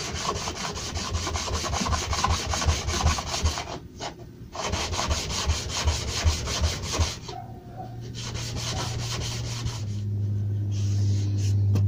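Steel planer blade rubbed flat back and forth in quick strokes on fine abrasive paper, taking the burr off its back; the scraping breaks briefly about four seconds in and stops about seven seconds in. A steady low hum comes up near the end.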